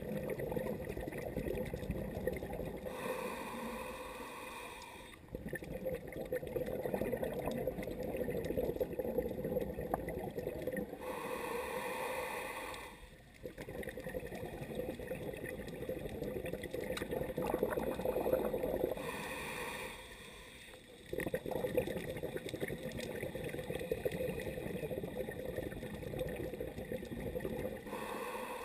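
Scuba diver breathing through a regulator underwater: long bubbling, gurgling stretches broken about every eight seconds by a short hiss.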